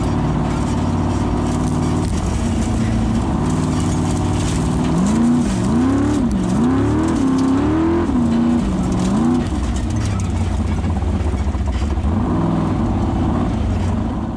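Formula Offroad car's engine heard from inside the cockpit, running steadily, then revved up and down several times in quick succession around the middle before settling back to a steady run.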